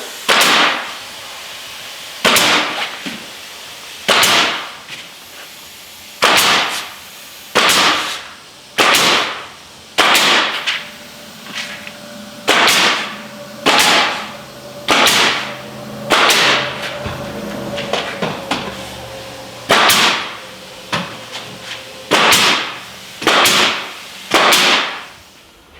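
Galvanized nails being driven through high-density foam ThermalBuck into the framing: a loud, sharp strike about every one to two seconds, some twenty in all.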